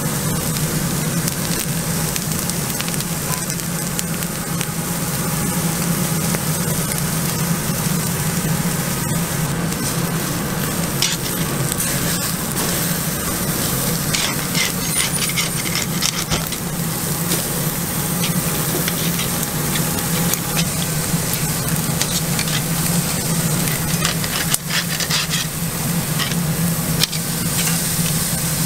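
Tomahawk and T-bone steaks sizzling on a grill grate over a flaming charcoal fire, a steady hiss with scattered crackles and pops. A steady low hum runs underneath.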